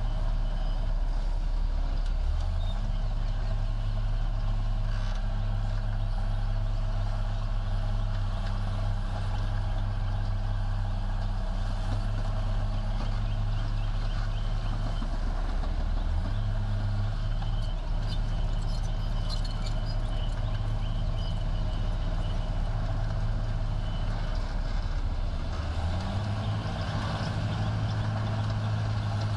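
Diesel engine of a heavy construction machine running continuously, its speed stepping up and down several times as it works.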